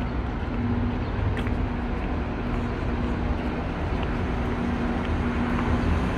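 Steady low rumble and hiss of outdoor street ambience, with a faint hum that comes and goes.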